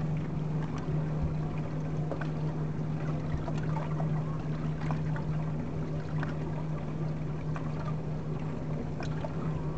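A boat motor running at a steady low speed with a constant hum, while water laps and splashes against the hull in small irregular slaps.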